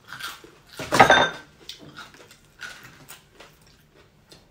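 Eating and tableware sounds: a loud clatter of dishes or utensils about a second in, then lighter clicks while crispy deep-fried pork knuckle is pulled apart by hand.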